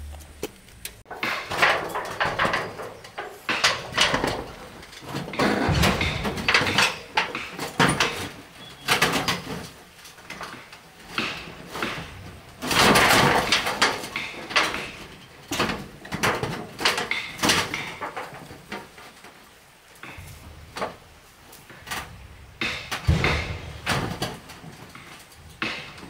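Irregular scraping and knocking strokes of manual work, roughly one every second or so, with one longer scrape about halfway through.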